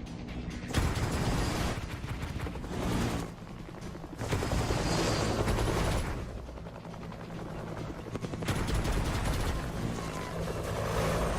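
Action soundtrack played back for a surround sound check: stretches of rapid gunfire in three loud spells, over music and a steady low hum.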